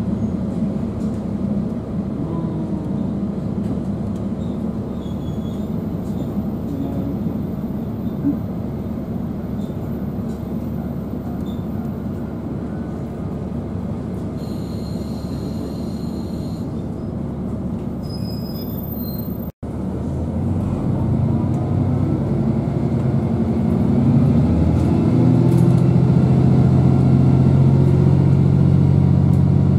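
Interior sound of a KiHa 40 diesel railcar under way: a steady low rumble of wheels and engine. After a brief dropout about two-thirds of the way through, the diesel engine comes up louder with a cluster of steady droning tones, as under power.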